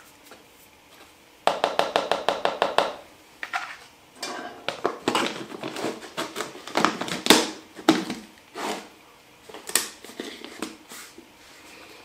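Small hard objects being handled at close range: a quick rattle of about a dozen clicks about a second and a half in, then irregular knocks and clatters, with a small-room sound.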